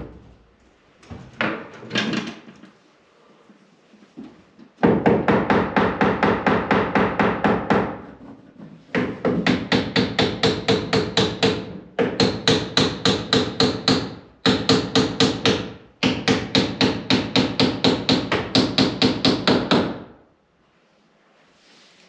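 Cordless impact driver sinking long screws through a door jamb and shims into the framing, in five runs of rapid hammering impacts, each two to four seconds long and stopping as the screw seats. A few lighter knocks come before the first run.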